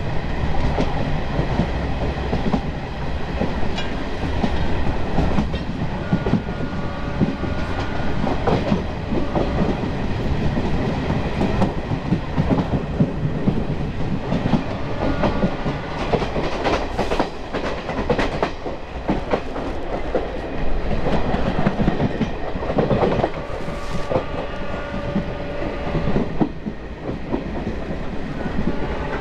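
Diesel-electric multiple unit (DEMU) train running, its wheels clattering over rail joints in a continuous clickety-clack, with a faint steady whine coming in twice.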